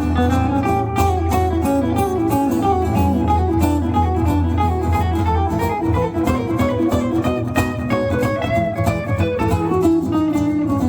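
Instrumental break in a live song: a guitar picks a stepping melodic run over strummed chords, with no singing.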